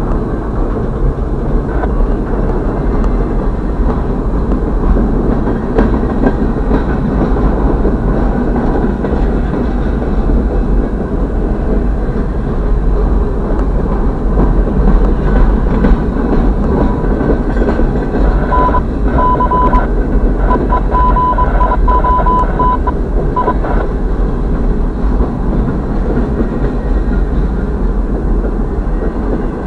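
Freight train's boxcars rolling past at close range, with a steady rumble of steel wheels on the rails. A high, broken tone sounds for about five seconds a little past the middle.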